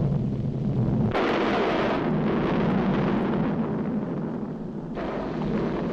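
Cartoon sound effect of a volcano erupting: a deep, continuous rumble that breaks into a louder, wider explosive roar about a second in and swells again near the end.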